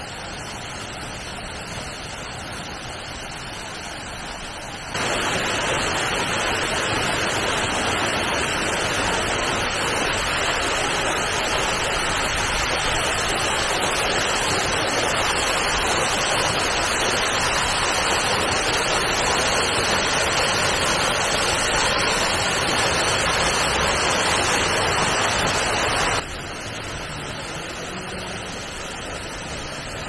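Full-flowing waterfall, a steady rush of falling water. It gets suddenly louder about five seconds in and drops back to the softer level a few seconds before the end.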